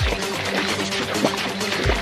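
Background music with a low drum beat under steady held tones.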